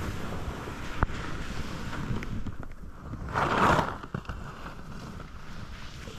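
Wind buffeting an outdoor camera microphone: a steady low rumble and hiss, with a sharp click about a second in and a brief louder hiss just past the middle.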